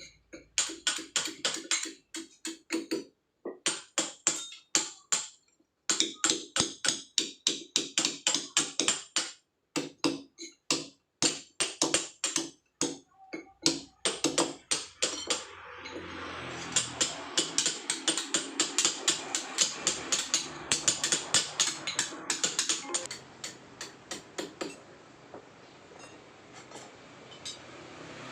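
Hand chisel being struck by a hammer on soft paras stone, quick sharp taps about four to five a second in runs with short pauses between them.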